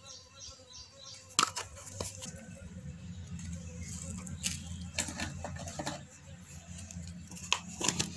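Spices being shaken and tapped out of plastic containers onto fish pieces in a metal basin: scattered sharp taps and clicks, with a low steady hum from about two seconds in.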